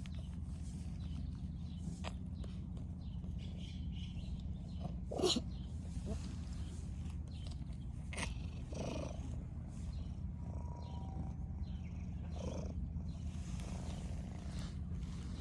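Cat purring steadily, with a few short sharp sounds over it, the loudest about five seconds in.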